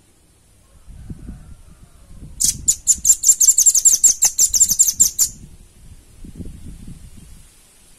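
Velvet-fronted nuthatch calling: a rapid, high-pitched trill of sharp notes, about eight or nine a second. It starts a couple of seconds in and lasts about three seconds.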